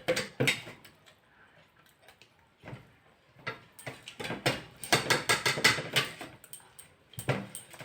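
People eating chapati, a rapid run of short wet clicks from chewing and mouth noises that grows busier after a few seconds.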